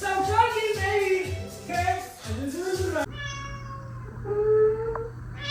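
Music with a singing voice over a pulsing beat, cut off abruptly a bit past halfway. A domestic cat then gives a long meow over a steady low hum, loudest near the end.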